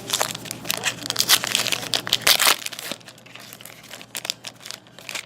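Wrapper of a Black Diamond hockey card pack being torn open and crinkled. The crackling is dense for about three seconds, then thins to a few lighter rustles as the cards are handled.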